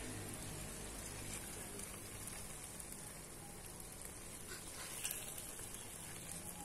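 Faint, steady sizzling hiss from okra curry in a steel pot, with a couple of light taps of a wooden spoon about five seconds in.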